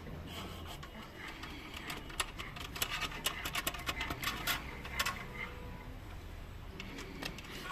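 A run of light, irregular clicks and taps, densest between about two and five seconds in, as the muzzleloader is handled during loading; no shot is fired.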